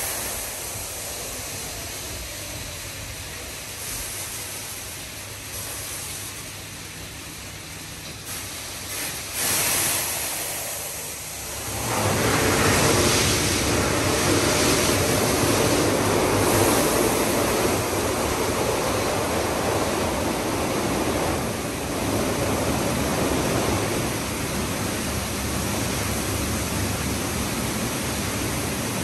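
Istobal M9+ rollover car wash in its wash cycle: water spraying onto the car with short louder bursts of spray. About twelve seconds in, a much louder, steady rushing of water and wash machinery sets in.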